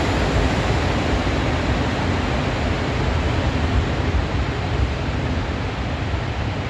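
Departing passenger train's carriages rolling away along the platform track: a steady running noise that eases off a little as the last carriage leaves.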